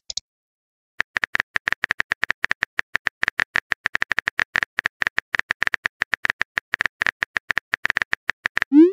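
Rapid on-screen keyboard typing clicks from a texting-story app, many per second, as a message is typed out letter by letter. They start about a second in, and a short rising swoosh near the end marks the message being sent.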